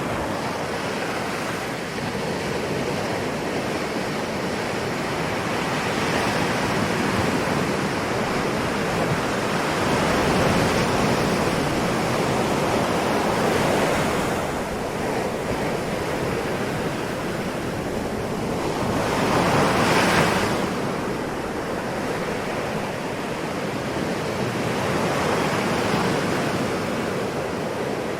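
Ocean waves breaking and washing in, a continuous surf noise that swells and subsides every several seconds, with the loudest wave about two-thirds of the way through.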